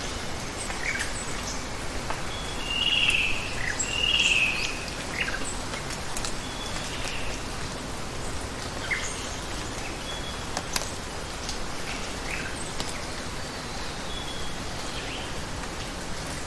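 Rainforest ambience: a steady hiss of falling or running water under scattered bird chirps, with the two loudest calls about three and four seconds in, and a few sharp ticks.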